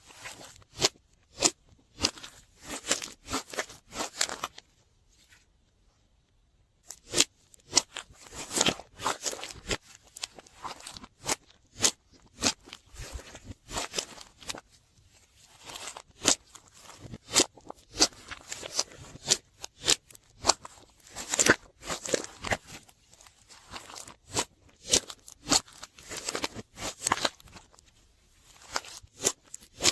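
Slime being kneaded and squeezed by hand, giving irregular sticky crackles and pops in clusters, with a short pause about five seconds in.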